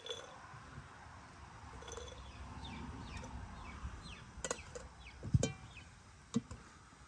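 A quick run of short, falling bird-like chirps, followed by three sharp knocks about a second apart; the middle knock is the loudest and has a low thump.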